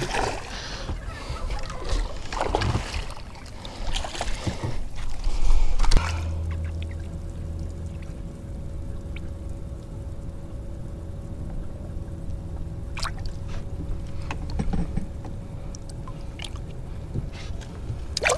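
Rough wind-and-water noise for about six seconds, then a boat motor humming steadily with a faint steady whine, broken by a few light clicks.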